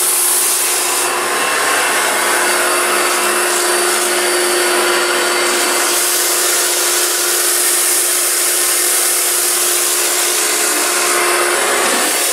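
Kärcher K2 electric pressure washer running, a steady motor and pump whine under the hiss of water jetting from a round surface-cleaner attachment pressed onto a soapy rug.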